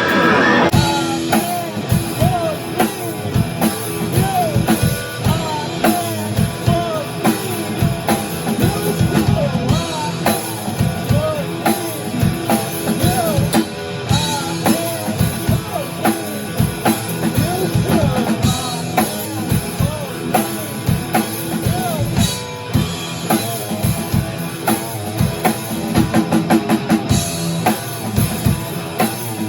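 Rock music with a drum kit keeping a busy, steady beat and pitched parts that bend in pitch above it.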